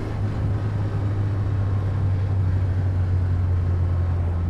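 Austin-Healey 100M's four-cylinder engine pulling steadily on the move, with wind and road noise rushing through the open cockpit.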